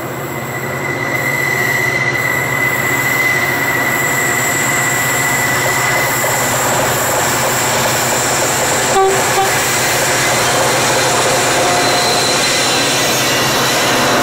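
Diesel-electric locomotives of a grain train approaching and running past at close range, engines running. The sound grows louder over the first couple of seconds and then holds steady, with a thin high whine through the first half.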